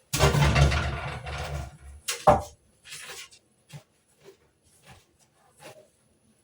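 Feathers being pulled by hand from a freshly killed, still-warm duck. A loud rustling, tearing burst comes in the first two seconds, then a short sharp sound, then faint scattered rustles.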